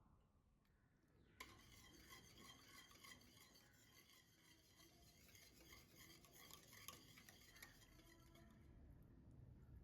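A kitchen utensil stirring and scraping in a pan, with small clinks against the metal. It starts with a sharp click about a second and a half in and fades near the end.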